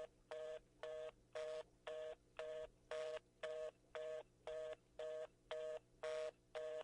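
Telephone fast busy (reorder) signal: short two-tone beeps repeating about twice a second. It is the sign that the call cannot be completed.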